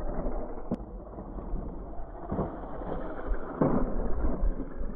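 Wind rumbling on the microphone, with the gritty scrabble of a Tamiya Wild One RC buggy's tyres on dirt and gravel coming in louder swells. There is a sharp click about three-quarters of a second in.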